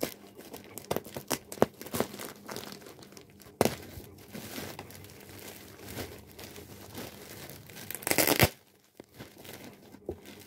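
Scissors snipping through the clear plastic packing of a vacuum-packed pillow, then the plastic wrapping crinkling and rustling as it is pulled open and handled. A loud burst of crinkling comes about eight seconds in.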